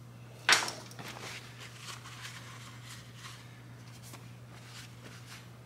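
A sharp knock about half a second in, then soft, irregular scuffing and rubbing as a shop rag is wiped over the cam plate and cam chain, over a steady low hum.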